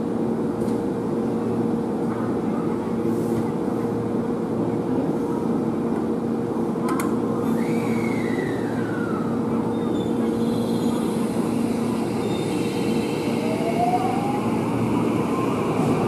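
JR West 223 series electric train standing at an underground platform with a steady hum, then pulling away in the last few seconds, its traction motors giving a whine that rises in pitch as it accelerates.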